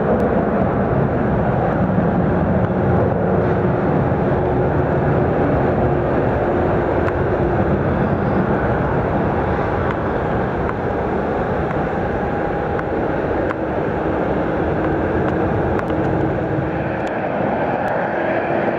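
Steady jet-aircraft engine noise at an airport apron, with faint whining tones that drift slowly in pitch.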